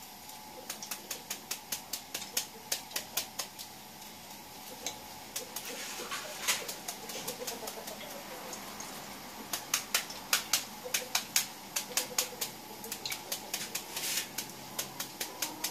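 Large kitchen knife chopping a hand-held banana blossom into thin shreds: quick sharp cutting strokes, about three to four a second, thinning out for a few seconds in the middle.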